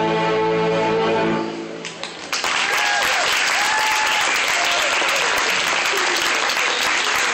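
A string orchestra of violins, violas, cellos and basses holds its final chord for about a second and a half, and the chord dies away. The audience then breaks into steady applause with some cheering.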